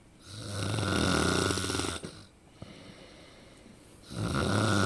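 A person snoring: two long snores, each close to two seconds, the second starting about four seconds in, with a quiet pause between.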